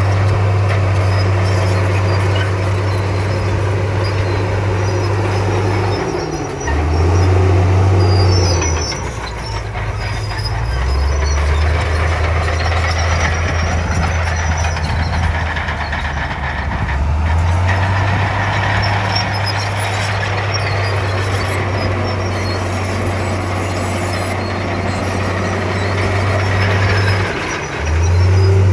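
Komatsu crawler bulldozer's diesel engine running hard, with a clattering noise over it. The low engine note drops and picks back up several times as the load changes.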